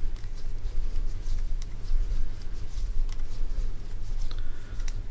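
Wooden knitting needles clicking and tapping faintly and irregularly as stitches are worked along a row, over a steady low hum.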